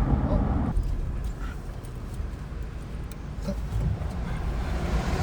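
Steady low rumble of a car on the move, heard from inside the cabin, with a few faint small sounds over it.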